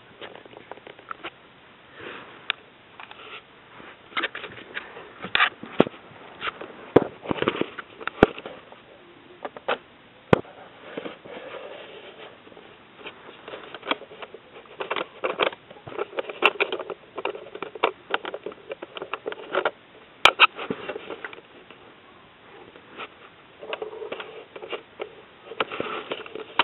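Close-up handling noise: rustling and irregular sharp clicks and rattles of plastic Lego pieces being worked by hand.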